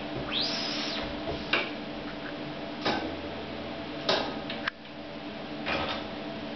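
MAN 8x8 manual screen-printing carousel at work. Early on there is one swish, like a squeegee stroke across the screen, then a handful of sharp clicks and knocks from the press heads and platens, over a steady low hum.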